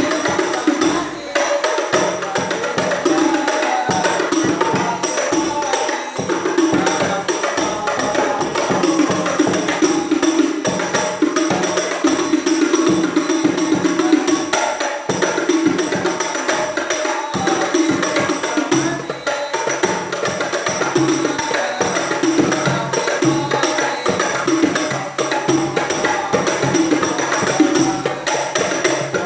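Terbang (rebana) frame drums played together in a continuous, dense rhythm.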